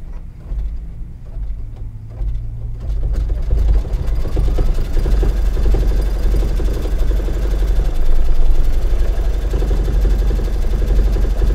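Brother Luminaire 2 embroidery machine stitching at speed, a fast, even needle rhythm that starts about three seconds in. It is sewing an outline through a sheet of puffy embroidery foam.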